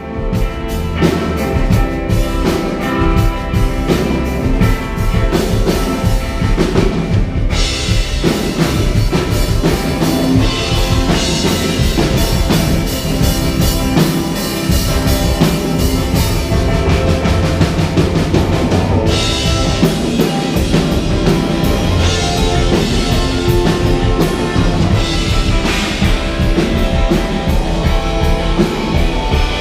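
Rock music led by a full drum kit: a steady bass-drum and drum beat with cymbals, the cymbals heavier from about 8 seconds in and again from about 19 seconds in.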